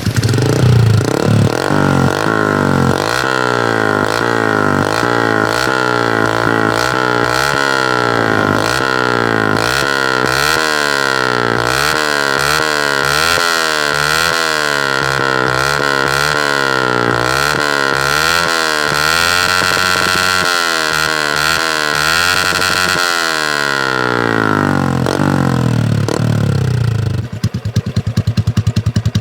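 Motorcycle engine through a Charama 9 replica conical aftermarket exhaust, revved up and down again and again about once a second, then settling toward idle near the end.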